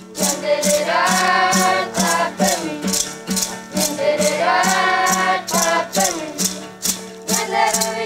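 Guarani ritual song: voices singing over a rattle shaken in a steady beat, about three shakes a second, with a steady low note held underneath.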